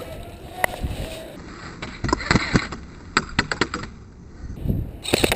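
Airsoft guns firing: scattered sharp snaps, with quick strings of shots about two seconds in, around three to four seconds in, and again near the end.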